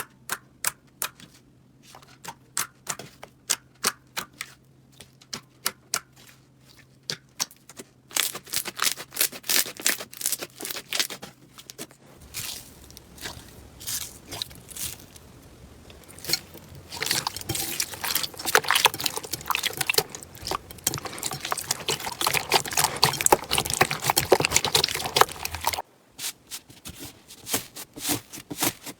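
Slime being squeezed and poked by hand, making sticky clicking pops: sparse at first, then a thick run of crackling pops.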